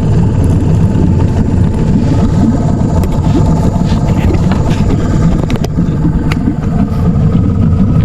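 An engine running steadily, with a few faint clicks over it.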